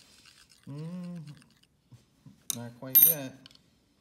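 Glass stirring rod scraping and tapping in a glass Petri dish, with a sharp click and then one bright, ringing clink of glass on glass about three seconds in. A low voice murmurs briefly twice.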